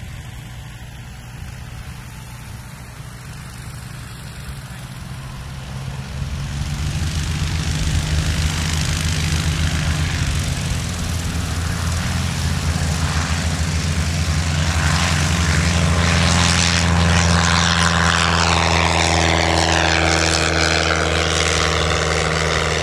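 American Legend Cub light-sport aircraft's single piston engine and propeller running. The engine drones at moderate power, then grows louder about six seconds in as it opens up for the takeoff run. It holds at full power as the plane climbs past, the sound shifting as it goes by near the end.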